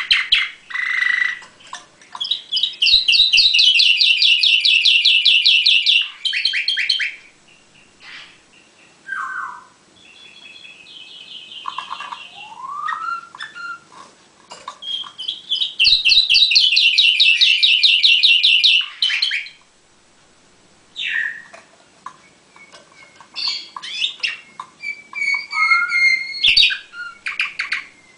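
A canary singing: two long, fast, evenly pulsed trills of about three to four seconds each, with short chirps and rising slurred notes between the phrases.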